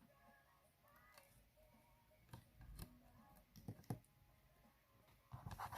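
Faint scattered clicks and taps of ribbon and craft materials being handled over near silence, with a short cluster of clicks near the end.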